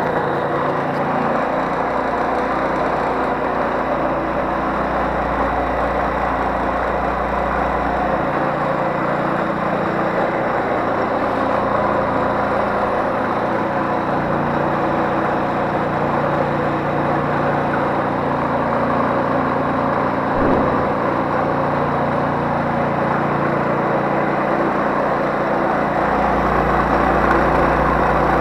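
139QMB 50cc single-cylinder four-stroke scooter engine running steadily, showing that it works. A single short click comes about two-thirds of the way through, and the engine gets slightly louder near the end.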